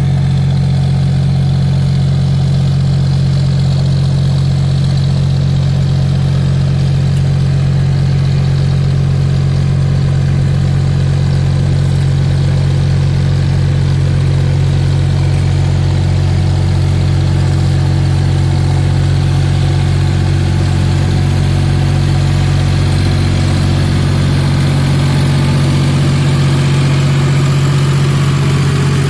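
Engine idling, a loud low drone that holds steady and unchanged throughout.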